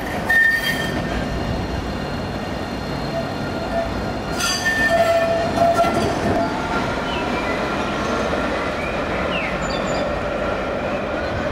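Alstom Citadis tram running on a curved track past the listener, a steady rumble that swells as it goes by, with short high tones near the start and again as it passes.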